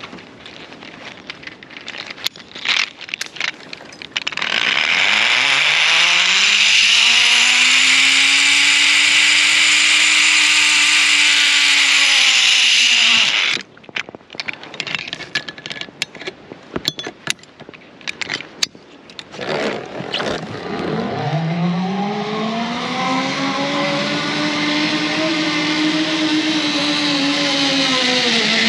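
Zip line trolley's pulley wheels running along a steel cable, two rides in a row: each a loud whine with hiss that rises in pitch as the rider gathers speed, holds, then drops away as he slows into the platform. Between the rides, clicks and clanks of the metal trolley and carabiners being handled.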